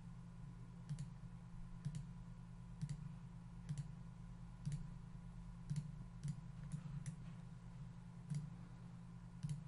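Computer mouse button clicking, about eleven single clicks at roughly one a second and a little quicker in the middle, as faces are selected one by one. A faint steady hum lies underneath.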